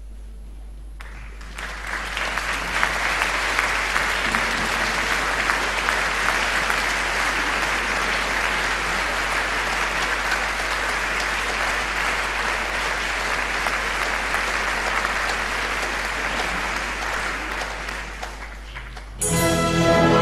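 Audience applauding for about seventeen seconds, starting about a second and a half in and thinning out near the end. A full symphony orchestra then comes in loudly and suddenly.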